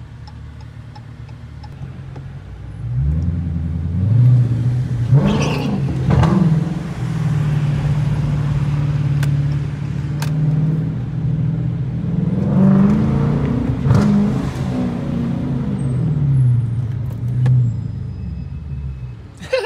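Dodge Challenger R/T's 5.7-litre Hemi V8 heard from inside the cabin, idling low for the first few seconds, then pulling away about three seconds in. The engine note rises and falls as it drives on and eases off near the end.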